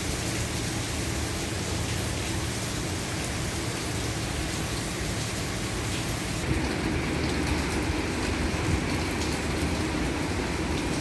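Heavy rain pouring on a roof, with water running off the eaves: a steady, dense hiss. About six seconds in the sound changes, the high hiss thinning and a lower, fuller rush taking over.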